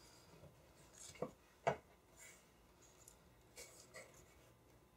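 Faint rustling of a paper pattern and light taps as spandex-covered plastic canvas pieces are laid on it and pressed into place on a table. Two sharper clicks come a little over a second in, and two small ticks near the end.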